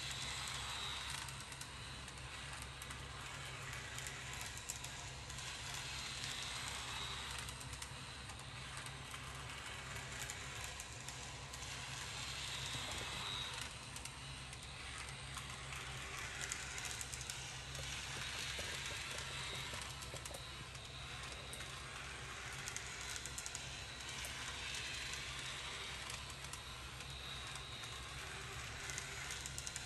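A model tram running round a small diorama track: a steady whirring hiss from its motor and wheels that swells and fades every few seconds as it circles, over a low steady hum.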